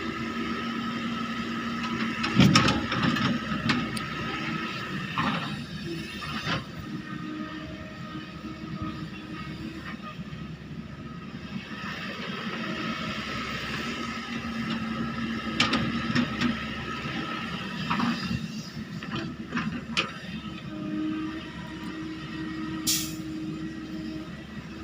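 Excavator engine running steadily under load, with the pitch of its drone shifting as it works and several sharp metallic clanks, likely the bucket and boom at work. A brief high squeal comes near the end.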